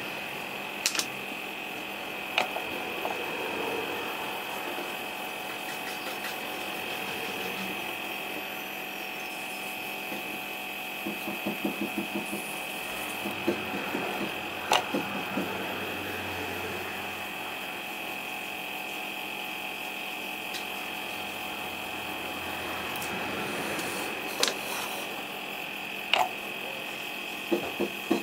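Airbrush setup running steadily with a constant whine and low hum while black enamel is sprayed onto the model's underframe. There are a few sharp clicks, and a brief rapid rattle about eleven seconds in.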